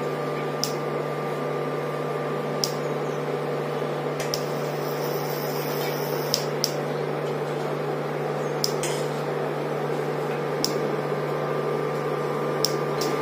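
Induction cooktop running, a steady electrical hum with its cooling fan. A dozen or so sharp clicks are scattered through it.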